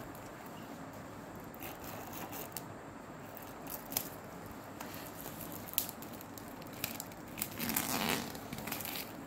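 Clear plastic shrink wrap being peeled and crinkled off a cardboard sweets box: scattered faint crackles and taps, with a louder stretch of crinkling near the end.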